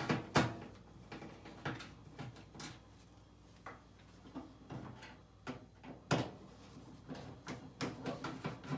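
Irregular small clicks and knocks of a screwdriver working the screws out of a Samsung front-loading washer's door latch. A sharper knock comes just after the start and another about six seconds in.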